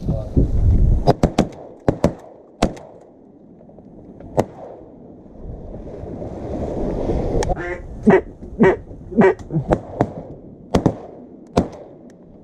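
Mallard duck call blown in short, sharp quacks: a few single quacks early, then a quick run of about half a dozen a little past halfway. Gusts of wind rumble on the microphone near the start.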